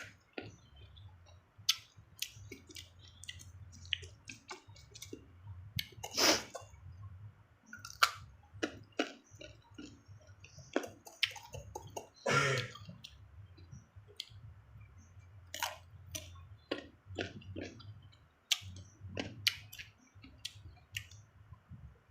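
Close-up eating of crisp raw young cucumber and green mango: crunchy bites and wet chewing with many sharp mouth clicks. Two louder bites come about 6 and 12 seconds in, over a low steady hum.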